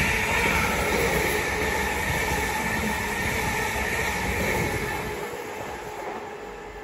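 Class 745 Stadler FLIRT electric multiple unit passing through the station at speed without stopping. The wheel-on-rail noise fades steadily as the train draws away.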